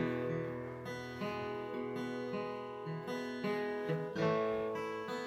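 Instrumental acoustic guitar music, strumming and picking chords that change about every half second.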